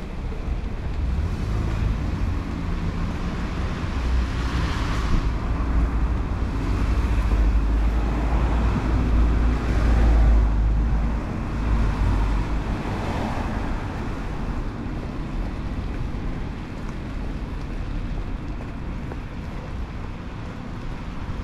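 A vehicle passing on a rain-wet street: a low rumble and tyre hiss swell from about four seconds in, peak, and fade away after about twelve seconds, over steady traffic noise.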